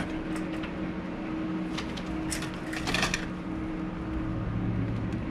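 A steady low hum fills the room, with two brief rustling clatters about two and three seconds in.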